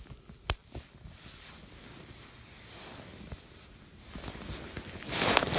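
A pet wheezing: soft breathy rasps, then a loud rasping wheeze about five seconds in. A sharp click about half a second in.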